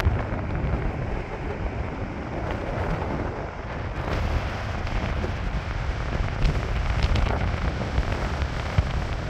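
Wind buffeting the microphone with a low rumble, joined about four seconds in by the steady rushing of a large waterfall's whitewater.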